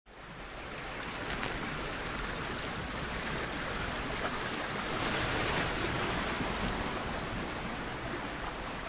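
Surf breaking and washing on a shingle beach, a steady hiss that fades in at the start and swells a little about halfway through.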